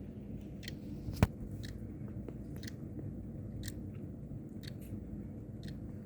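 Sligh mantel clock ticking, about one tick a second, with one louder click about a second in, over a steady low hum.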